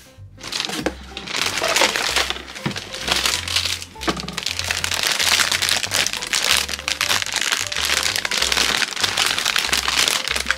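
Large plastic packaging bag crinkling and rustling as it is handled and opened, starting about half a second in, over background music with a repeating bass line.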